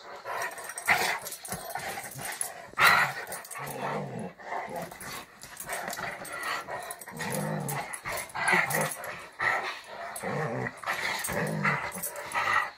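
A Labradoodle and another dog play-fighting, giving repeated short growls amid scuffling on bedding. One loud sharp sound comes about three seconds in.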